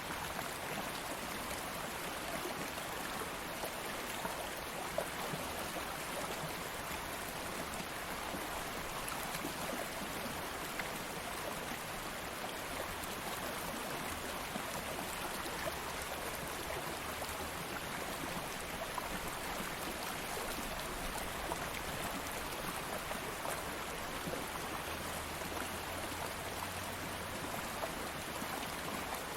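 A stream of flowing water running over stones, a steady even rush and babble.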